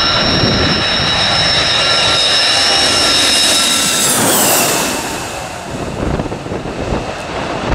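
Boeing E-3 Sentry AWACS jet passing low overhead on landing approach: its four turbofan engines give a steady whine over a roar, which drops in pitch about four seconds in as the aircraft goes past. The sound then fades as it moves away.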